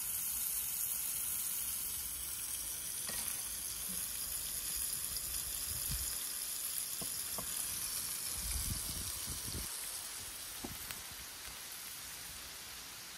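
Food sizzling in a frying pan, a steady hiss with a few light clicks and some low bumps a little past the middle. The sizzle grows quieter near the end.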